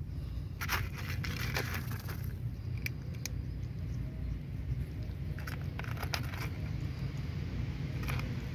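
Tuxedo kitten crunching dry cat kibble: short crackly bites in little clusters with pauses between, over a steady low rumble.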